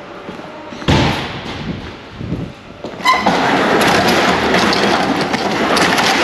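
Loading-dock door opening: a thump about a second in, then a short beep and a steady, loud rattle of the door running along its tracks, starting about halfway through.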